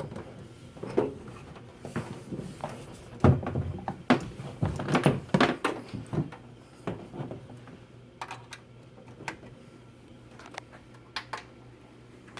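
Knocks, thunks and clicks of cables and connectors being plugged back into a desktop computer, busiest and loudest in the first half, then a few single sharp clicks.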